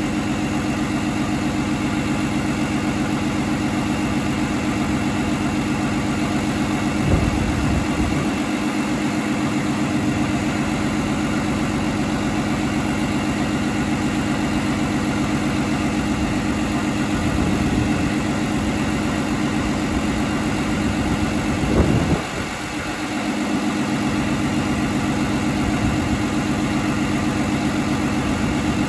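2017 International N13 inline-six turbo diesel idling steadily, heard from the open engine bay. It is revved briefly about 7 seconds in and again around 17 seconds, then harder around 22 seconds, settling back to idle after a short dip.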